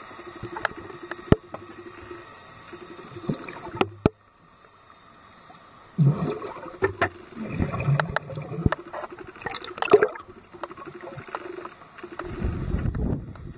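Underwater sound of a scuba diver's exhaled bubbles gurgling in bursts from about six seconds in and again near the end, with sharp clicks scattered throughout and a low steady hum in the first few seconds.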